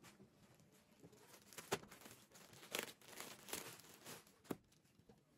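Faint crinkling and rustling of something being handled, in a few short noisy strokes spread about a second apart.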